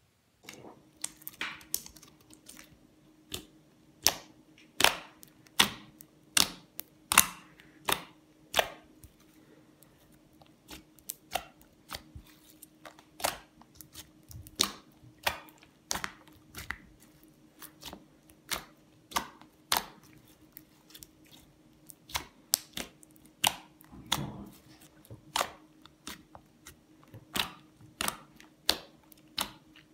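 Slime being played with by hand: a steady run of sharp, irregular clicking pops, about one to three a second, as air pockets in the slime are pressed and burst.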